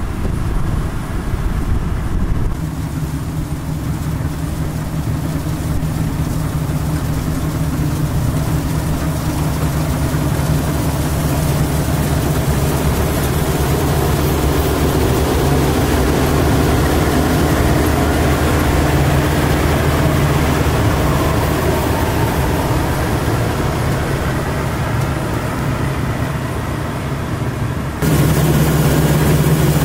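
Tracked GAM combine harvester running steadily while harvesting rice, a continuous engine and machinery drone. The sound jumps abruptly about two and a half seconds in and again near the end, louder at the end.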